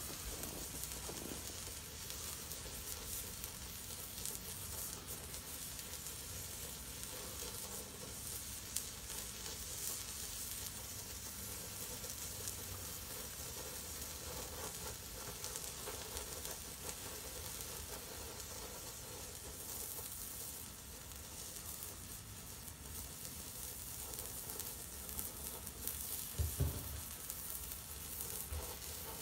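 Homemade white flare of potassium nitrate, sulfur and flake aluminium burning steadily with a sizzling hiss and fine crackle. A couple of brief low bumps near the end.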